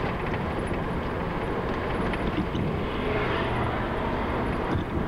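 Car engine and tyre noise in slow street traffic, heard as a steady, unbroken noise.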